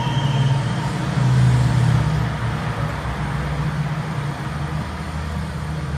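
JBL PartyBox 310 portable party speaker playing music at maximum volume with bass boost, a deep, heavy bass rumble dominating over a washed-out haze. It gradually gets quieter after about two seconds.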